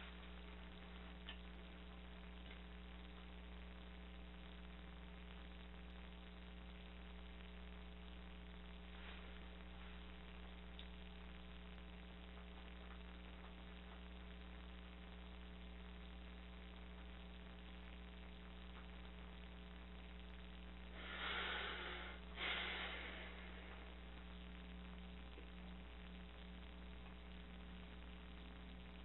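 Steady electrical mains hum with a faint hiss. About two-thirds of the way through, two short breathy rushes of noise come about a second apart.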